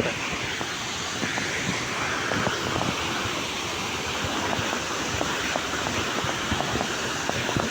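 Waterfall: a steady rush of falling water with small splashes.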